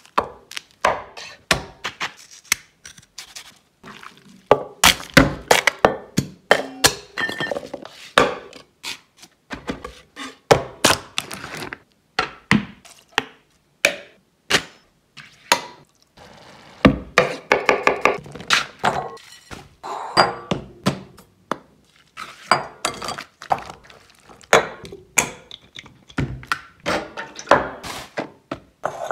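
A quick succession of close-miked food-prep sounds: many sharp knocks, taps and clinks of containers and utensils on a worktop, several of them cut off abruptly.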